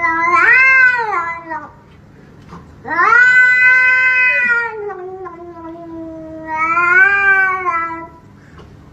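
Cat yowling in long drawn-out caterwauls, each call rising and falling in pitch, about three calls with short pauses between them.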